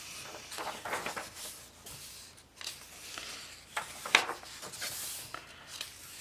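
Thin coloring-book pages rustling as they are turned by hand, a few short papery swishes with one sharp crackle about four seconds in.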